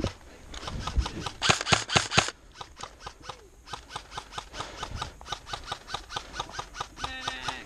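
Airsoft guns firing: a quick cluster of sharp shots about a second and a half in, then a steady run of single shots at roughly four a second.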